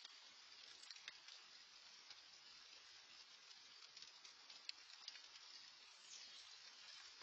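Faint rain pattering steadily, dotted with scattered sharper ticks of drops, heard through an outdoor security camera's microphone.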